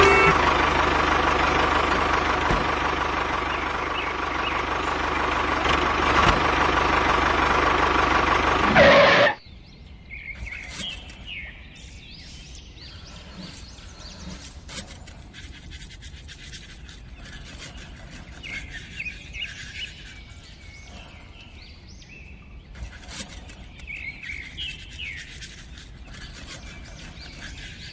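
A loud, steady motor drone from the toy tractor driving, which cuts off suddenly about nine seconds in. After that come quiet bird chirps with small clicks and rustles.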